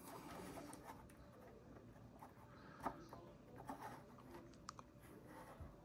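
Faint handling noise of an anime figure being adjusted by hand: light scraping and rubbing with a few small clicks, the clearest about three seconds in.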